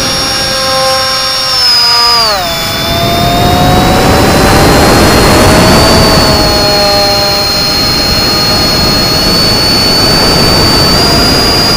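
Electric motor and propeller of an FPV flying wing whining. About two seconds in the pitch drops sharply as the throttle comes back, then climbs slowly again, with wind noise throughout.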